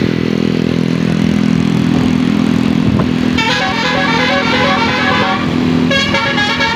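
A bus's basuri musical air horn playing a quick tune of rapidly changing notes, starting about three and a half seconds in and starting again near the end, over a steady low drone.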